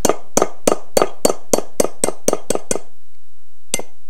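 Hammer striking a 5/8-inch socket to drive a needle bearing out of a Willys MB steering bell crank: a quick run of sharp metallic taps, about three to four a second, that stops about three seconds in, then one more tap near the end.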